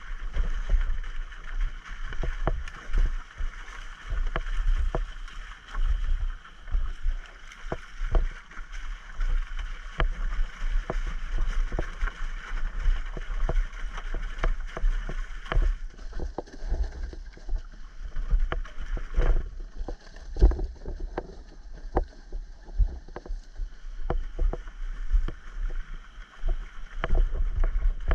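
Wind rumbling and buffeting on a microphone, with many short knocks and thumps; the hiss above the rumble thins out about halfway through.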